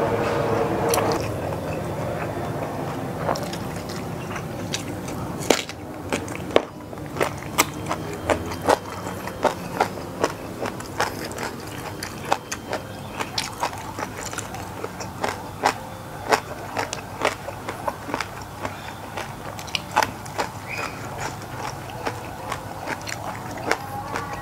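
Airplane passing overhead, its steady rumble fading out over the first few seconds. Then close-miked chewing and eating with the hands: a run of sharp wet clicks and smacks, a few a second.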